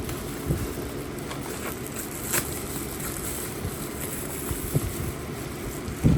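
Handling noises of a package being unpacked: a few scattered knocks and a short scrape, with the loudest thump near the end, over a steady low background rumble.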